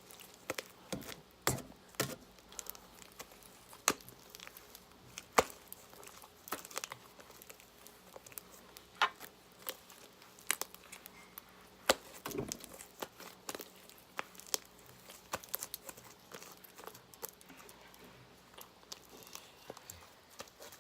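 Homemade glue slime being squished and stretched by hand, giving irregular sharp clicks and crackles, a few of them louder.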